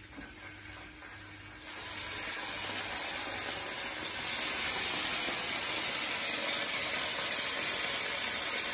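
Marinated chicken strips sizzling as they are laid into a hot frying pan. The hiss starts about two seconds in and builds as more pieces go in, then holds steady and loud.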